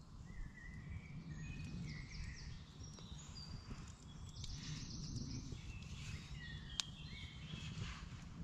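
Woodland birds singing, many short whistled phrases overlapping one another, over a low steady rumble. One sharp crack about seven seconds in, from the wood fire.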